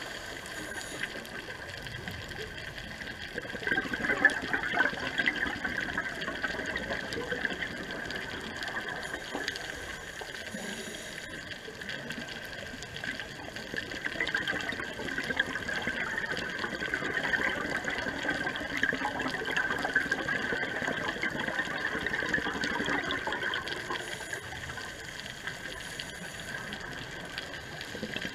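Underwater water noise: a steady bubbling rush that grows louder about four seconds in.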